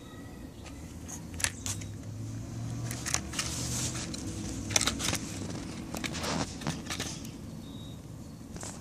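Eastern chipmunk foraging in a plastic bowl of sunflower seeds: irregular sharp clicks and scrapes of seeds and claws against the plastic, with a low steady rumble underneath.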